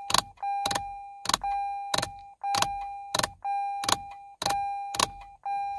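Lexus RC headlight switch stalk clicking sharply as it is turned on and off again and again, about every half second, to enter the fuel-level click count for headlight-leveling initialization. Over the clicks the car sounds a single-tone warning chime about once a second, each chime fading out.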